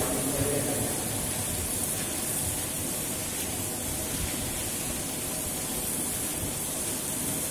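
Steady, even rushing hiss with no breaks, strongest in the high range.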